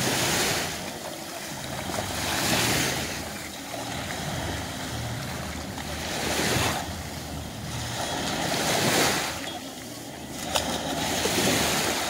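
Small waves breaking and washing up the sand, the rush swelling and fading every two to four seconds.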